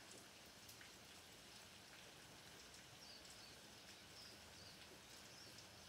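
Faint, steady rain falling, with a few scattered drop ticks. A few faint, short high chirps come in the second half.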